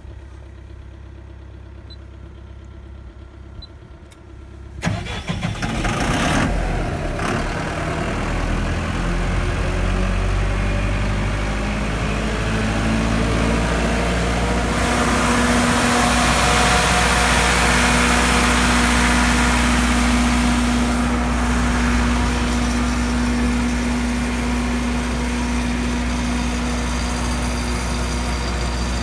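Cummins diesel engine of a 60 kW generator in a silent enclosure: after a few seconds of low hum with a couple of faint clicks, it cranks and fires about five seconds in, then settles into steady running, louder for a few seconds in the middle.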